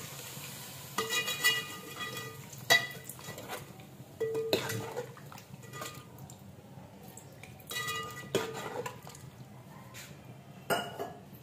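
Metal ladle stirring a watery onion-and-tomato masala in a metal cooking pot, scraping and clinking against the pot's sides with a handful of ringing metallic knocks.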